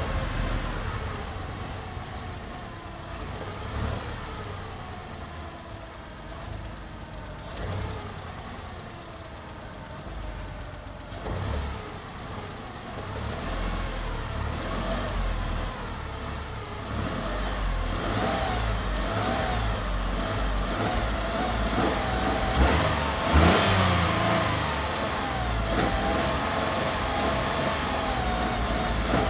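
Tata Tigor's three-cylinder engine being revved by repeated presses of the accelerator, the revs rising and falling again and again. The revving is softer through the first half and grows louder and busier from about halfway, peaking a little after that.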